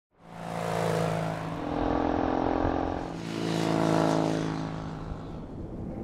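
A motorcycle engine fades in, its note rising and falling as it rides past, loudest about four seconds in.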